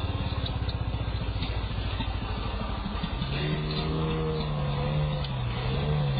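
Chainsaw engine running with a rapid low pulsing. From about halfway its pitch rises and falls as the throttle changes.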